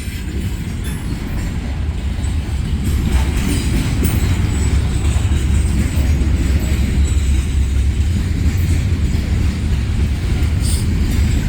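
Norfolk Southern freight train's cars rolling past: a loud, steady low rumble of wheels on the rails, with a few faint clanks.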